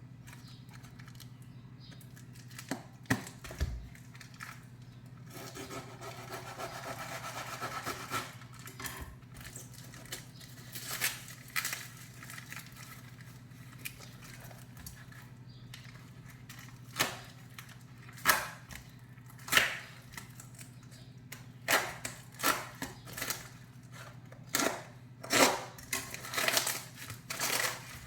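Packing tape being pulled and torn off a wrapped parcel: a few seconds of continuous peeling and tearing, then a series of sharp crackles and clicks as the wrapping is handled and pulled apart.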